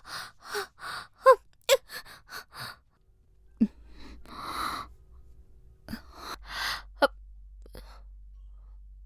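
Woman laughing breathily: a quick run of short laughs, about three a second, then a long breathy exhale and a couple more short laughs.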